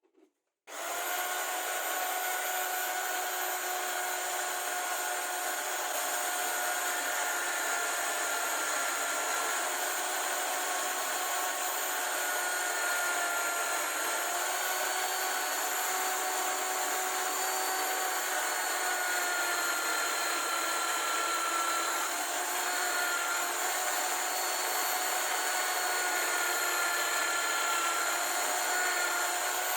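An electric power tool starts abruptly about a second in and runs steadily, a whine with several pitches over a noisy hiss that wavers slightly in pitch as it works.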